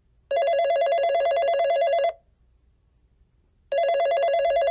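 Telephone ringing with a warbling electronic trill: two rings about two seconds long, about a second and a half apart, the second starting near the end.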